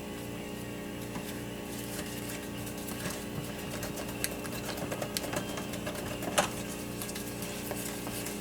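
Cake batter being stirred by hand in a mixing bowl: irregular clicks and scrapes of the utensil against the bowl, growing busier about two seconds in.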